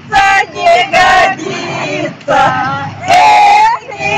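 A small group of women singing a Russian folk song together in loud, open-voiced unison. They sing in phrases of a second or so, with short breaks for breath.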